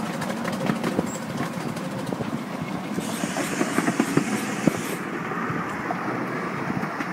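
7¼-inch gauge miniature ride-on train running along the track, its wheels rumbling and clicking steadily over the rails. A higher hiss joins in from about three to five seconds in.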